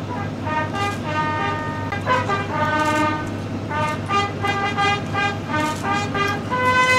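Military honour-guard fanfare trumpets playing a slow ceremonial call, a series of held notes of changing pitch, over a steady low hum.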